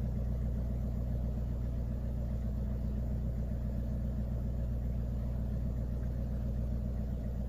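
Off-road vehicle's engine idling steadily, its pitch and level unchanging.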